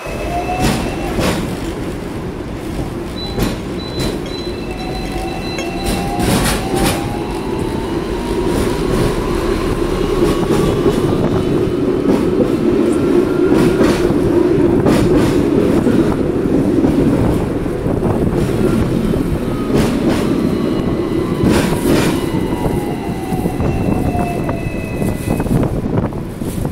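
Hong Kong double-decker electric tram running along its street rails, heard on board: a steady rumble of wheels on track with occasional clacks, and a motor whine that rises as the tram gathers speed and falls away as it slows near the end.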